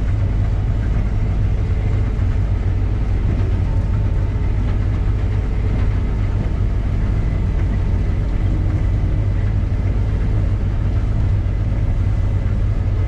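Case combine harvester running at steady load, a continuous low engine and machinery drone.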